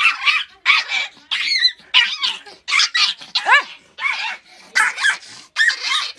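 An animal giving a rapid run of short, sharp calls, about two a second, some with a pitch that rises and falls.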